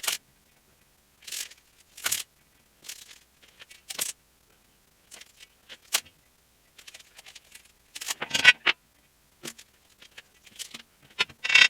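Hand work on the steel frame: a dozen or so short, irregular scraping strokes with a sharp click about six seconds in.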